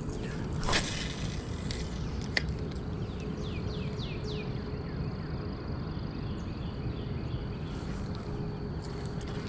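Spinning rod cast and retrieve: a brief rush of noise about a second in, a sharp click soon after, then the spinning reel being wound in under a steady low rumble. A bird gives a run of quick falling chirps near the middle.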